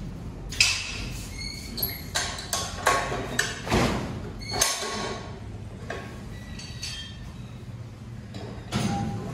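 Gym weights clanking: a string of sharp metal knocks and clinks, some ringing briefly, bunched in the first half and another near the end.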